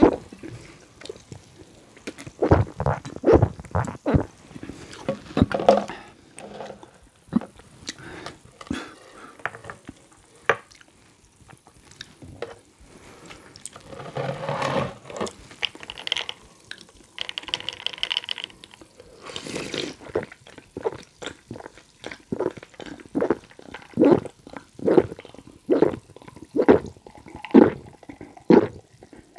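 Close-miked gulping of iced soda: a quick series of loud swallows at the start and again through the last several seconds, with a quieter stretch in between. At the end it is cola being drunk from a glass.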